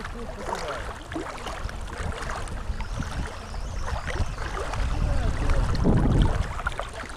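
Wind buffeting an outdoor camera microphone as a rumbling, gusting noise. It swells to its strongest about six seconds in, then eases.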